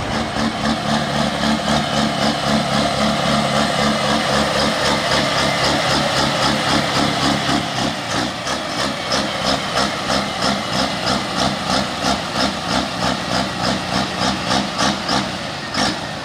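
Pro field-class pulling tractor's engine running loud at idle. About halfway in it falls into an even, rhythmic lope of roughly three pulses a second.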